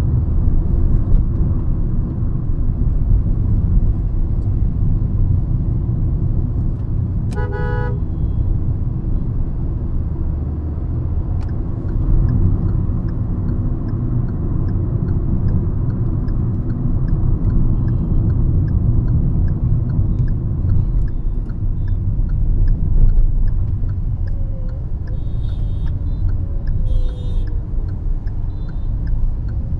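Hyundai i20 hatchback being driven in traffic: a steady low rumble of road and engine noise, with a car horn sounding once, briefly, about seven seconds in, and two short, higher-pitched horn toots near the end. A light, evenly spaced ticking runs through the second half.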